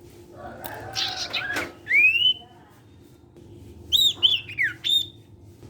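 Sirtu songbird singing. About a second in comes a harsh, scratchy call, then a rising whistle, and near the end a quick run of high whistled notes sliding up and down. A faint steady hum runs underneath.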